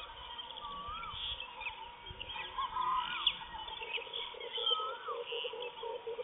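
Wild birds calling in open country: a short whistled note that rises and then falls, repeated about every two seconds, among scattered higher chirps over a faint steady tone. A low, rapid pulsing call joins about four seconds in.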